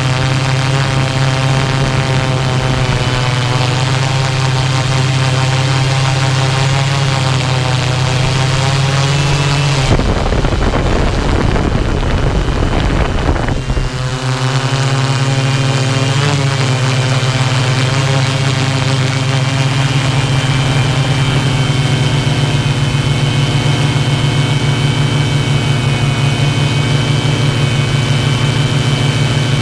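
Multirotor drone's propellers and motors buzzing steadily as it hovers and turns. A few seconds in, around a third of the way through, the steady buzz is swamped by a rushing noise for about four seconds, then returns with short shifts in pitch.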